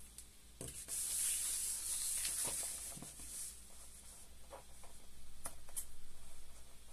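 Crisp synthetic raincoat fabric rustling as it is gathered and handled, with several sharp scissor snips as the fabric is cut open.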